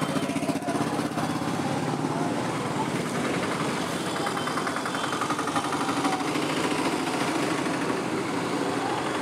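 A small engine idling steadily close by, with a fast, even pulse, over the general noise of a busy market.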